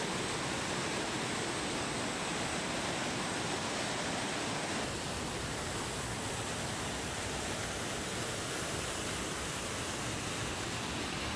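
Steady rushing of a waterfall and its rapids, an even unbroken noise.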